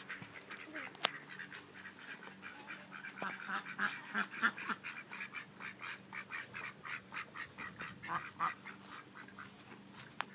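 A small flock of domestic ducks quacking in a rapid, continuous chatter of short calls, loudest around the middle.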